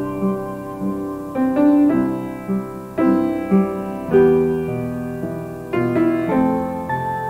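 Piano playing an instrumental passage: chords struck every second or so, each left to ring and fade.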